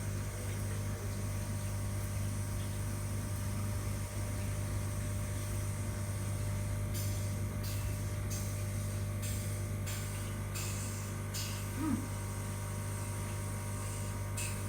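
Steady low machine hum, with short hisses of air breaking in irregularly, about six or seven times in the second half.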